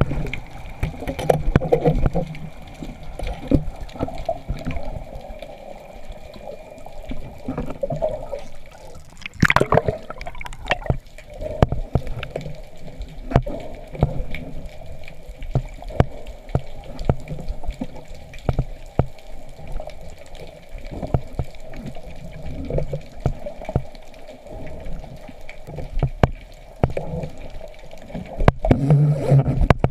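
Water moving and sloshing around the camera, with many short, sharp clicks and knocks scattered through it.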